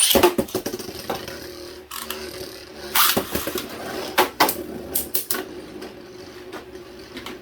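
Beyblade spinning tops whirring steadily in a plastic stadium, with a sudden loud start and several sharp plastic clacks scattered through.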